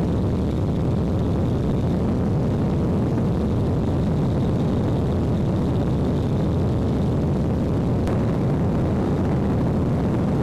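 Airplane in flight heard from inside the cabin: a steady, unbroken drone of engine and airflow noise, heaviest in the low range.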